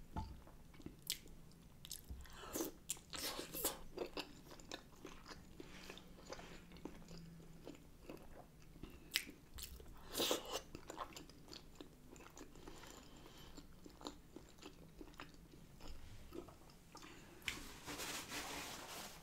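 Close-up chewing and wet mouth sounds of a person eating shrimp-boil food in butter sauce, with scattered smacks and clicks.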